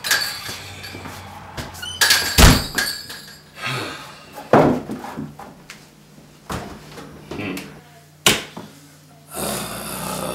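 Front door being opened and shut, with its loudest thunk about two and a half seconds in, then a few scattered knocks and thuds.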